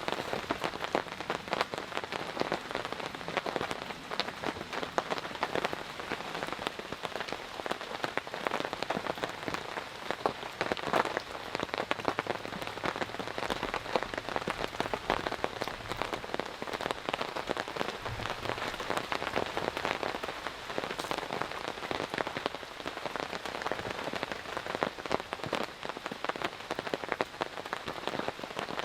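Steady heavy rain, dense irregular drops striking a close surface.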